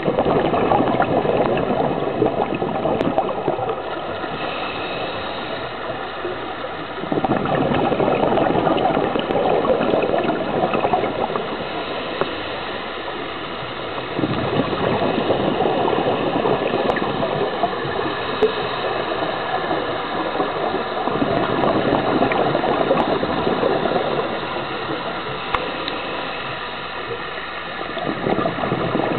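Scuba regulator breathing heard through an underwater camera housing: exhaled air bubbles rush and gurgle in bursts of a few seconds, coming about every seven seconds, with quieter stretches between.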